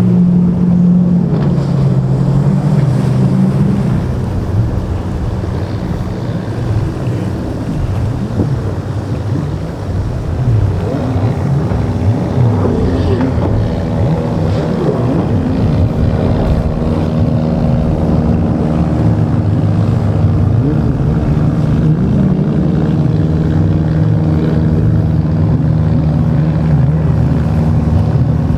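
Motorboat engines running, their pitch shifting up and down as the boats change speed, with waves splashing and wind buffeting the microphone.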